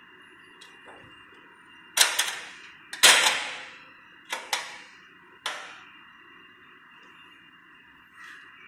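About seven sharp metallic clanks with short ringing tails, the loudest around two and three seconds in, over the steady hum of a stainless steel (SS304) batter mixer.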